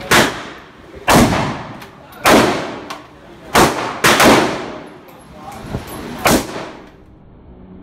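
Six rifle shots fired at an uneven pace, roughly a second or so apart, each followed by a ringing echo off the walls of an indoor range, with a few fainter pops between them.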